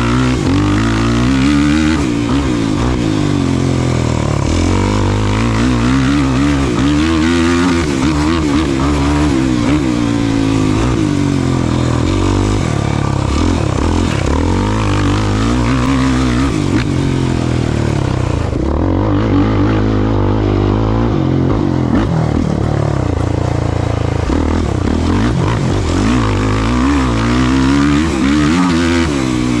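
Off-road race vehicle engine revving hard, its pitch climbing and dropping over and over as it accelerates, shifts and backs off over rough ground. The high end briefly drops out about two-thirds of the way through.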